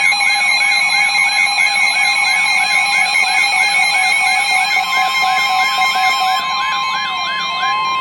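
Midland Public Alert weather radio sounding its warning alarm: a loud electronic siren tone sweeping up over and over, about four times a second. About five seconds in a steady tone joins it, the NOAA Weather Radio warning alert tone, which signals that a warning message is about to be read.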